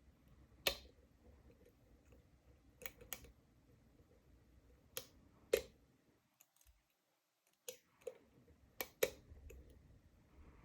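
Scattered small clicks from a Lockwood oval pin-tumbler cylinder being picked, as pins and core click under the pick and tension wrench; about ten sharp clicks, irregularly spaced.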